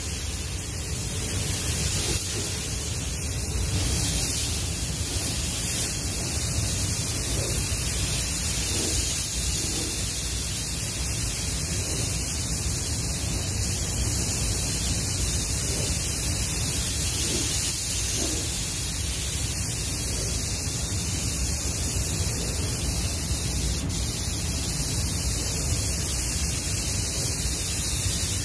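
Steady hiss of compressed air from a gravity-feed paint spray gun spraying a car panel, over the constant rush of the spray booth's air.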